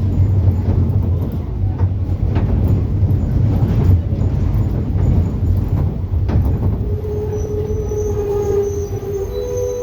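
Bus running, a steady low engine and road rumble with scattered rattles and knocks; a high squeal sets in about seven seconds in.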